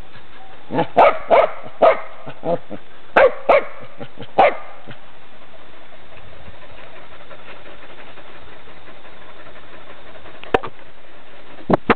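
Dogs barking in a quick run of about nine sharp barks over the first four and a half seconds, then a pause over a steady hiss, and another bark or two near the end.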